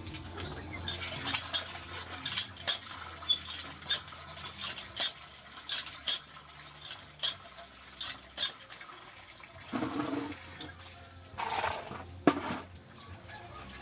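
Cast-iron hand-lever water pump being worked: a metal clank on each stroke in a steady rhythm, with water gushing from the spout into a basin. About nine seconds in the clanking stops, and a few louder sounds and a sharp knock follow near the end.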